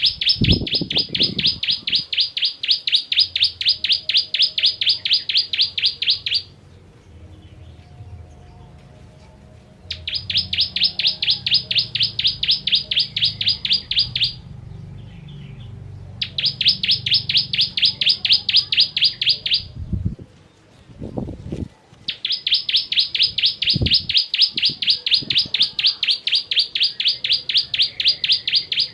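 Ciblek kristal (bar-winged prinia) singing long, rapid-fire trains of sharp repeated high notes, about seven a second, in four bursts of several seconds each with short pauses between. A few brief low thumps are heard near the start and around the middle.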